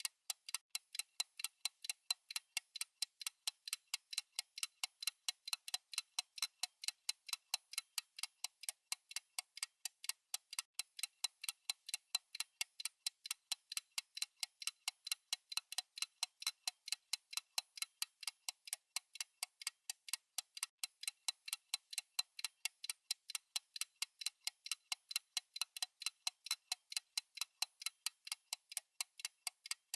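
Fast clock tick-tock sound effect from a countdown timer, steady even ticks at about four a second.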